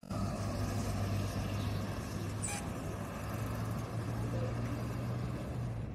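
City bus engine running with a steady low hum amid street traffic.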